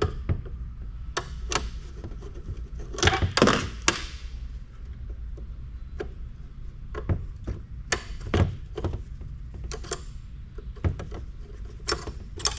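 Scattered clicks, knocks and light metallic clatter of a screwdriver and metal and plastic parts being handled while a microfiche reader is taken apart, with a denser cluster of knocks about three seconds in.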